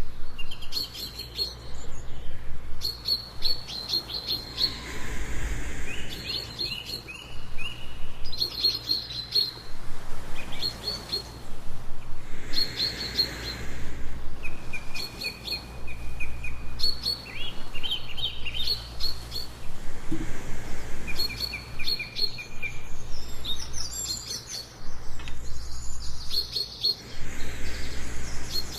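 Songbirds chirping in short repeated phrases and quick trills, one after another every second or two. A slow, soft breath sound comes every seven or eight seconds, with a steady low rumble beneath.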